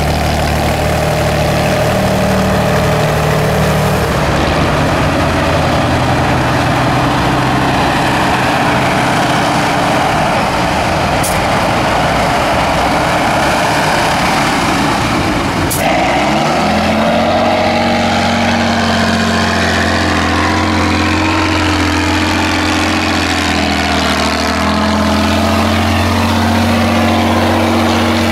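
Tatra 8x8 trial truck's diesel engine working hard under load as it pushes through mud and water, its tyres churning the mud. The engine note changes abruptly about halfway through and then slowly rises in pitch as it revs.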